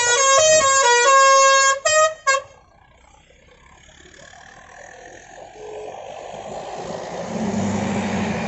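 Bus's telolet basuri multi-tone musical horn playing a quick tune of short changing notes, cutting off about two seconds in. After that a low engine rumble builds steadily, loudest near the end.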